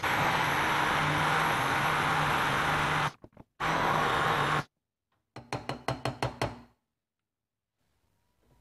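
Hand-held stick blender running in a glass jug, puréeing cooked tomatoes: a steady motor hum with churning. It stops briefly about three seconds in, runs again for about a second, then gives a quick series of short bursts before going quiet.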